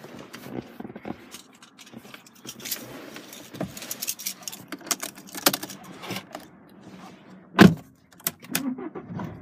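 BMW key fob and the keys on its ring jangling and clicking as they are handled at the ignition slot, with one loud clunk about three-quarters of the way through.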